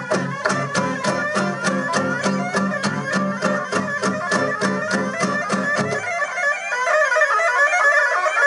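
Live improvised noise music: a fast steady beat over a low bass line, which drops out about six seconds in, leaving a dense, shrill layer of sound.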